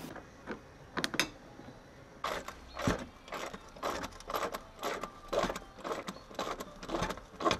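Metal spanner working a 10 mm bolt: a run of short metallic clicks and scrapes at irregular spacing, about one or two a second, growing busier after the first couple of seconds.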